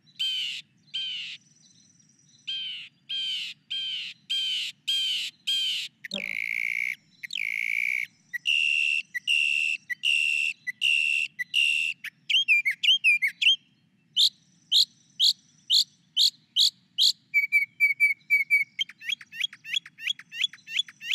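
Recorded northern mockingbird song: a run of different phrases, each repeated several times before switching to the next, from slurred notes to fast trills and sharp rapid notes. The phrases are imitations of other birds.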